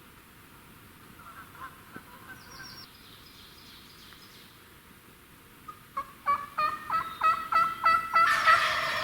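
Wild turkey calling: a run of about eight yelps, about three a second and growing louder, then a gobble near the end. Faint songbirds sing in the first half.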